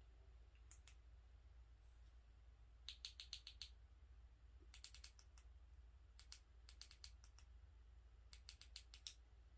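Small push-buttons on a USB ring light's inline controller clicking as they are pressed, in quick runs of several presses, as the light's power, brightness and colour modes are tried. A faint low hum lies underneath.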